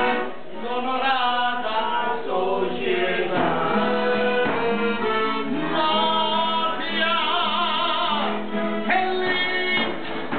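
Live folk band playing: male voices singing over accordion and acoustic guitar, with a hand-held frame drum (tambourine).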